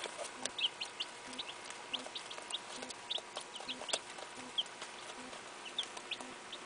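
A brood of young chicks peeping: short, high chirps scattered irregularly, a few each second.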